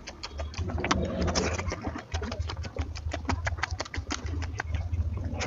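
Close-miked eating of mutton fat curry with rice: a rapid run of wet chewing and lip-smacking clicks over a low hum.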